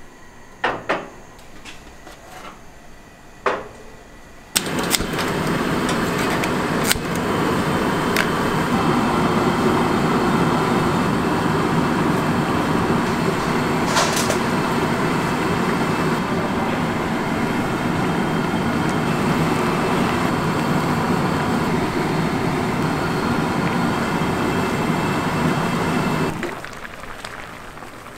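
A few knocks of earthenware pots being set on an iron gas-range grate, then, about five seconds in, a steady rushing noise of a gas burner with loach soup boiling hard in the earthenware pot, which stops suddenly a couple of seconds before the end.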